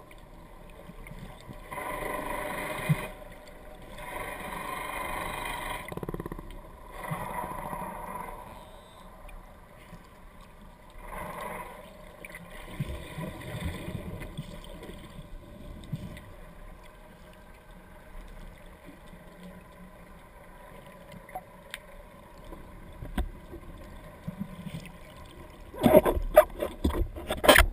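Muffled underwater sound inside a GoPro housing, with several surges of rushing noise in the first half and a quieter stretch after them. Near the end come loud splashes and knocks.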